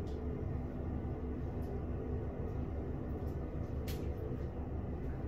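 Steady low background rumble with a faint hum, and a single faint click about four seconds in.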